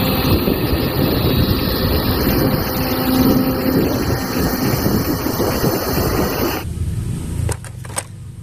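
Kobelco SK260 crawler excavator running as it digs into a pile of soil: a steady, loud diesel engine and machine noise. It cuts off about two-thirds of the way through, leaving a quieter stretch with a few light clicks.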